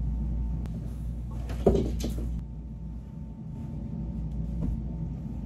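Pillows and bedding being handled while a bed is made: a soft thump and rustle of fabric a little under two seconds in, the loudest moment, over a steady low hum.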